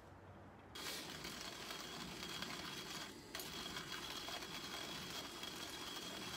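Hand coffee mill grinding beans, starting about a second in: a steady grinding noise with a brief break around the middle.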